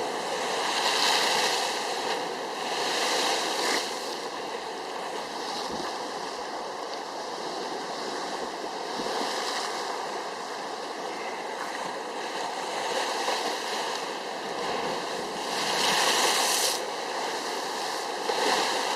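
Sea waves breaking and washing up the shore at high tide: a continuous rushing that swells louder about a second in, again around three seconds, and near sixteen seconds.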